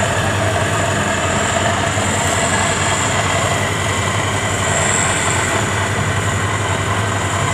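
FMWorld WD102Pro rice combine harvester running at work, engine and threshing machinery making a steady drone: a constant low hum under a high hiss.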